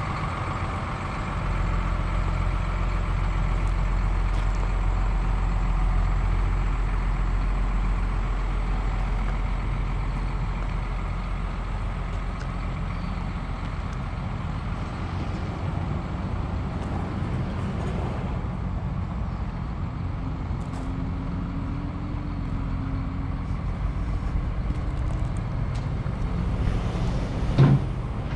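Hino 268's inline-six diesel engine idling steadily. A sharp knock sounds near the end.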